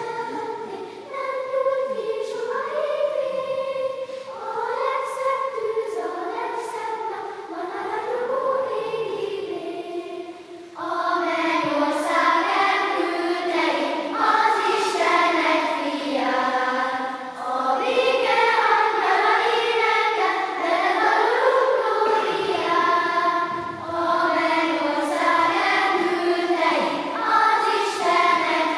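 Children's choir singing a melody together, the singing growing louder about eleven seconds in.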